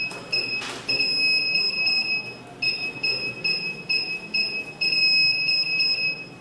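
Active 207 burglar alarm panel's buzzer sounding: runs of short high beeps, about three a second, alternating with long steady beeps, and cutting off at the end. A single sharp click comes about 0.7 s in.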